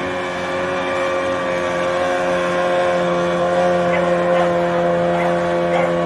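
Jet ski engine running steadily at cruising speed while towing a banana boat, a constant droning hum.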